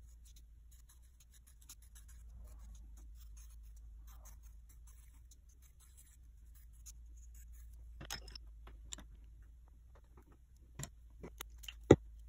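Pencil tip scratching in quick short strokes as letters are written on a flat sheet of clay. Near the end come a few sharp taps, the loudest just before the end.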